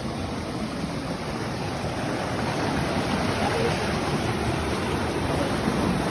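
Waterfall rushing steadily: a continuous roar of falling water.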